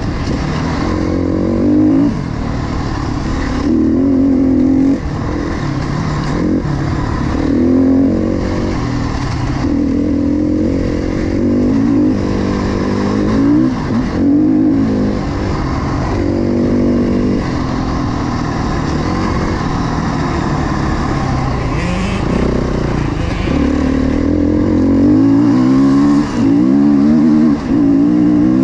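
KTM dirt bike engine under way, revving up and easing off over and over as the rider works the throttle and shifts, its pitch climbing and dropping every second or two.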